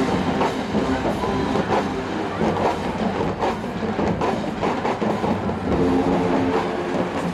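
A large marching band playing, its sousaphones and brass holding chords over steady drum hits, heard from far up in the stadium stands.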